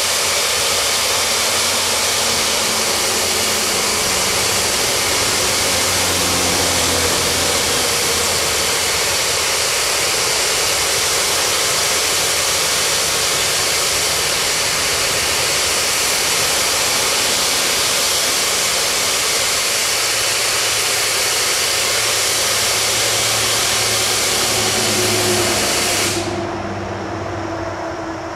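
Natural gas venting under pressure from a Marcellus gas well's vent pipe: a loud, steady rushing hiss that cuts off abruptly shortly before the end as the venting stops.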